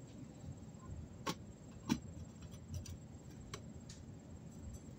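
Metal tool on a tin can, prying the lid off: a few sharp metallic clicks and taps, the clearest about one and two seconds in, with smaller ticks after.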